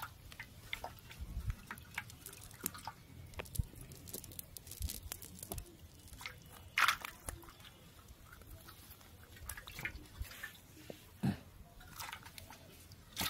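Small live fish flapping and splashing in a shallow steel plate of water and on the mud, with the rustle of a fishing net being handled: a string of irregular short slaps, taps and little splashes, with two louder slaps about halfway and near the end.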